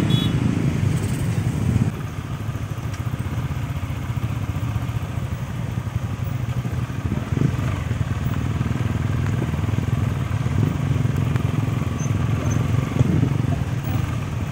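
Several motorcycles running in a group: a steady, low engine drone, a little louder for the first two seconds, then even while riding along.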